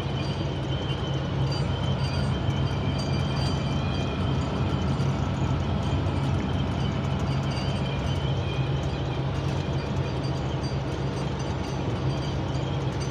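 Steady engine and road drone inside a vehicle cab at highway speed. Over it runs a thin, high whistle that wavers slightly in pitch: the cab whistle that the driver finds bothersome.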